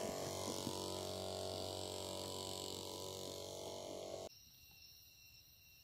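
Electric backpack sprayer's pump motor humming steadily, then cutting off suddenly about four seconds in. Faint steady chirping of insects remains afterwards.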